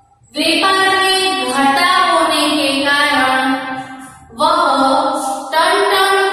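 A woman's voice singing a melody in long held phrases, with a short break about four seconds in.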